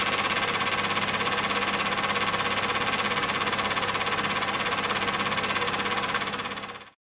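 Super 8 film projector running: a fast, even mechanical clatter over a steady low hum, which cuts off suddenly near the end.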